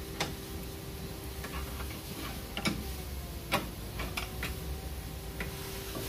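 Long-handled ratchet wrench clicking in a few irregular strokes as it turns the rear bolt of a car's lower control arm, over a steady hum.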